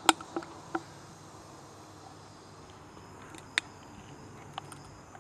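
Insects singing steadily in a faint high-pitched drone, with a few short sharp clicks near the start and a louder one about three and a half seconds in.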